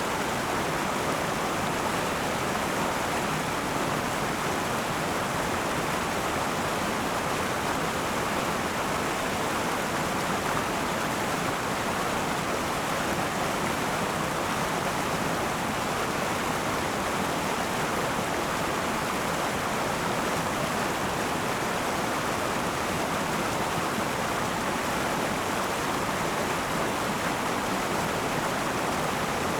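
River water flowing over rocks: a steady, even rushing of a shallow mountain river.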